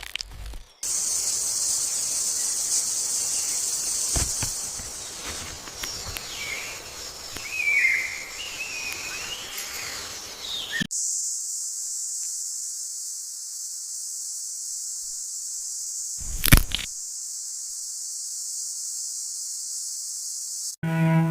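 Rainforest ambience of a steady, high-pitched insect drone. In the first half it sits over a bed of broader rustling noise, with a few wavering whistled calls in the middle. A single sharp whoosh comes about sixteen seconds in.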